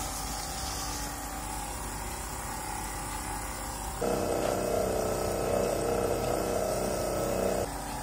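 Homemade air washer running: its 12V fan and geared motor turning a stack of CDs through water, making a steady mechanical hum. About four seconds in the hum gets louder, with a pitched buzz on top, for about three and a half seconds, then drops back.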